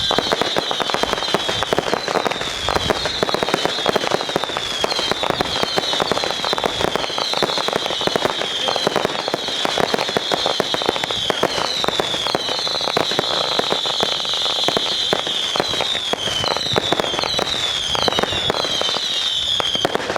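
Fireworks going off continuously with dense crackling and popping, over a steady string of short whistles that each fall a little in pitch.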